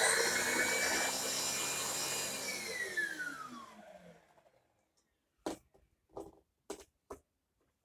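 Shark Lift-Away corded vacuum cleaner running, then switched off about two and a half seconds in, its motor whine falling in pitch as it spins down and stops about four and a half seconds in. A few short knocks follow near the end.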